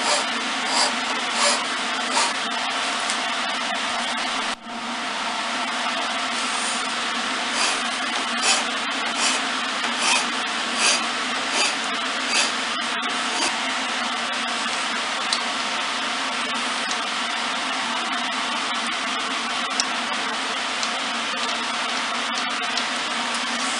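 Flat steel file rasping on a wooden spindle on a lathe, cutting a spiral twist in strokes about 0.8 s apart, over the steady whir of a running machine. The file strokes stop about halfway through and only the machine runs on.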